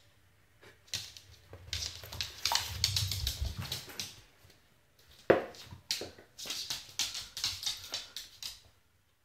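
A dog's clear plastic cone collar scraping and knocking against a wooden floor as the dog tries to push a ball with it: irregular clatters and scrapes, with one sharp knock about five seconds in.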